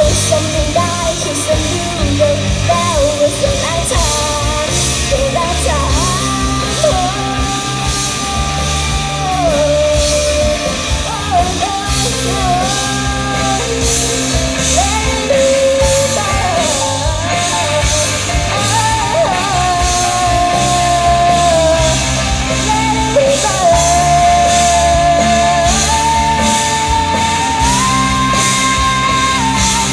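Live rock band playing amplified, with a lead vocalist singing a melody over electric guitar, bass and drums.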